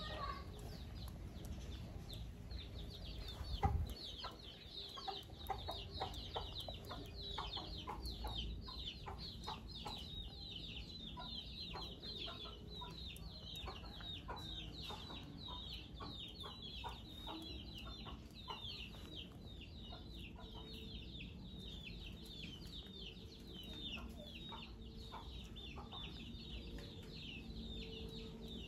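A young macaque grooming a man's hair: soft clicks and rustles of its fingers picking through the hair close to the microphone, with one louder thump about three and a half seconds in. Behind it runs a constant rapid high peeping of chickens.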